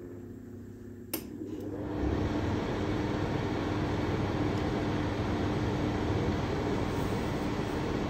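Somogyi Home FKF 59201 wall-mounted fan heater starting up: a click about a second in, then its squirrel-cage fan spins up into a steady rush of air with a steady hum, loud and even from about two seconds in.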